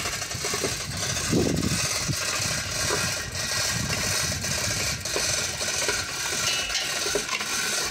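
Steady mechanical rattling noise, engine-like.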